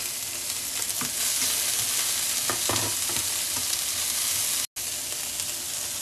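Diced pork, green pepper and carrot sizzling in a frying pan, stirred with a spatula that scrapes and knocks against the pan a few times. The sizzle cuts out completely for an instant about three-quarters of the way through.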